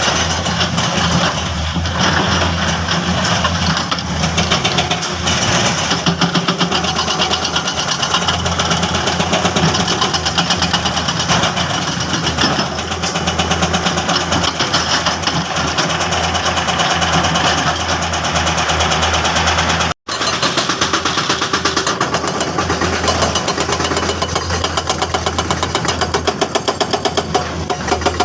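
Hydraulic excavator's diesel engine running steadily, with a fast, even clatter throughout. The sound cuts out for an instant about two-thirds of the way through.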